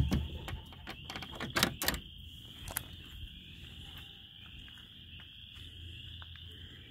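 Several sharp knocks and clicks in the first three seconds, from handling the small wooden coop's doors and latches. A steady high-pitched chorus runs underneath throughout.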